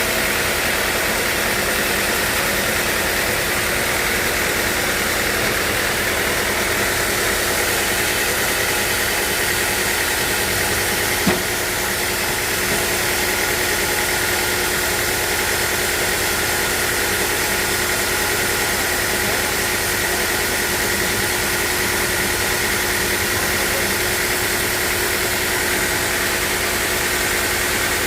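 Sawmill machinery running steadily, a constant mechanical hum with a couple of held tones over a wide hiss, and a single sharp knock about eleven seconds in.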